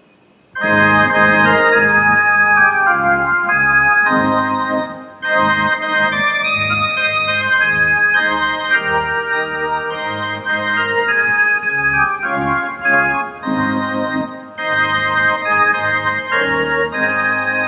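Organ playing a hymn's introduction in sustained chords, starting about half a second in, with short breaks between phrases about five and fourteen seconds in.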